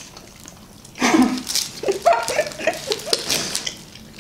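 A woman's short wordless vocal sounds, a run of brief pitched cries that rise and fall for about two and a half seconds, starting about a second in. A few sharp crinkles of plastic film sound among them.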